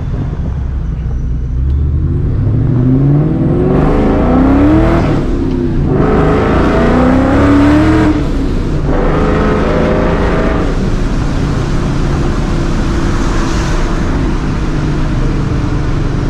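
Straight-piped, Vortech-supercharged 4.6-litre V8 of a 2004 Mustang GT pulling hard. The engine pitch climbs, drops at two upshifts about five and a half and eight and a half seconds in, and climbs again each time before settling to a steady run. The rear tyres are spinning through the pull.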